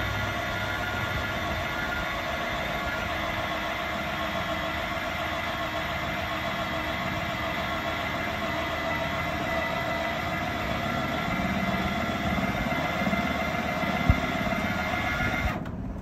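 Electric trailer tongue jack's motor and gearing running with a steady whine, driving the jack, then cutting off suddenly just before the end. A single sharp click comes shortly before it stops.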